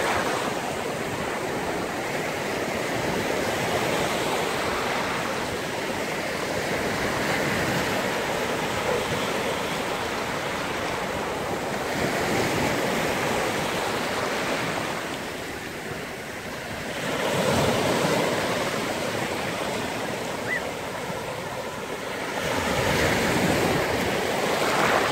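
Sea surf washing onto a beach: a steady rushing hiss that swells as waves break, once past the middle and again near the end.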